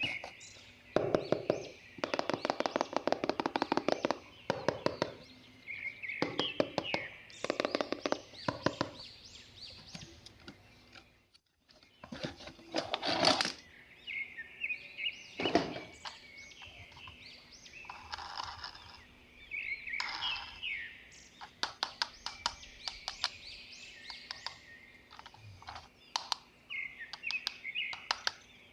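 Toys and their plastic packaging being handled: repeated clicks, taps and crackly bursts of plastic. Chirping runs in the background.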